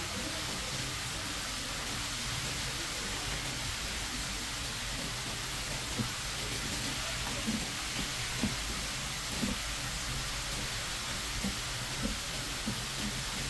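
Soft knife knocks on a cutting board, about one a second through the second half, as raw striped rock bream is sliced into sashimi, over a steady hiss.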